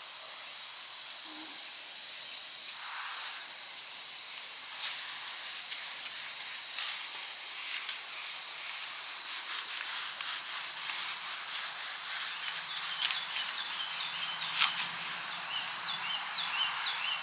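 Small paint roller rolling paint onto a rendered concrete step: a scratchy rubbing with scattered short clicks that grow busier after the first few seconds.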